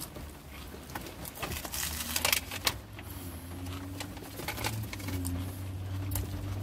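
Scattered clicks and crinkling from a hand-held burger being handled and eaten, over a low steady hum. The loudest cluster of crackles comes a little past two seconds in.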